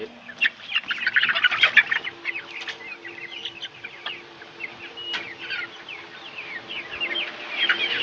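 A flock of three-month-old Golden Misri chickens peeping and clucking, a busy stream of short high chirps, thickest about a second in and again near the end.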